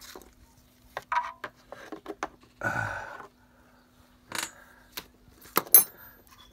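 Scattered clicks and knocks of plastic and metal parts being handled on an opened-up electric pressure washer, with a brief rustle about three seconds in and the sharpest click near the end.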